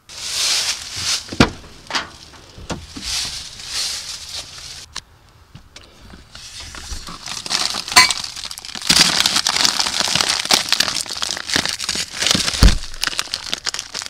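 Plastic packaging crinkling and rustling as it is handled close to the microphone, with scattered clicks and a couple of dull knocks, one about a second in and one near the end.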